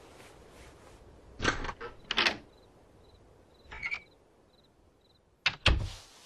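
Several sharp knocks and thuds, the loudest a close pair near the end, with a string of short, high, evenly spaced beeps in between.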